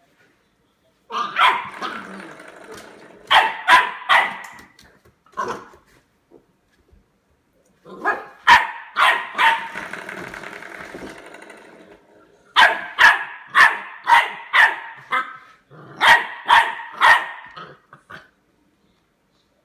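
Eight-week-old Labrador retriever puppy barking at a door stop in short, sharp barks. The barks come in about five quick runs of several, with pauses between.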